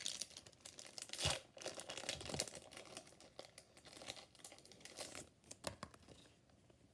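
Foil booster-pack wrapper of a trading-card game crinkling and tearing as it is opened by hand, with irregular crackles and rustles that are busiest in the first couple of seconds and thin out toward the end.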